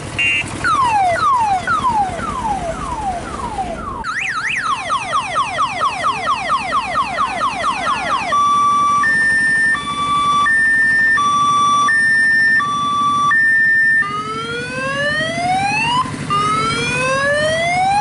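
Electronic siren sound effect stepping through several modes: falling sweeps about twice a second, then a fast up-and-down yelp about four times a second, then a two-note hi-lo tone, then slow rising wails about two seconds long.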